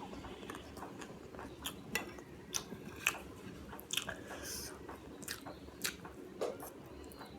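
Close-miked chewing of food, with irregular sharp mouth clicks and smacks.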